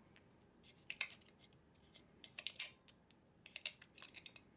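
Small AAA batteries being pried out of a plastic battery compartment: scattered light clicks and scrapes, in a few short clusters.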